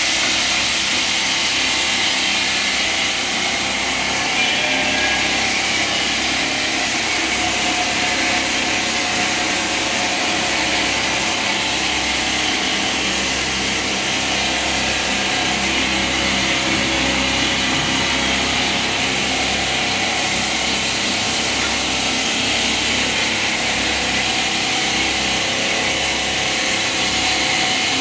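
Water-cooled marble-cutting machine running continuously, its blades grinding through marble tiles with a steady, hissing grind that does not let up.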